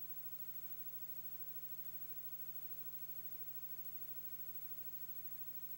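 Faint, steady electrical mains hum with a low hiss, unchanging throughout.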